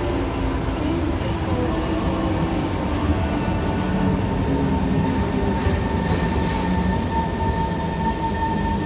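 Kawasaki Heavy Industries C151 metro train pulling into the station and slowing down. It rumbles along the rails, and a steady high whine grows stronger over the last few seconds as it brakes.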